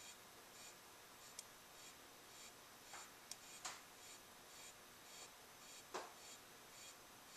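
Faint crunching of a praying mantis chewing a large beetle: soft, regular chews a little under twice a second, with a few sharper clicks, the loudest about six seconds in.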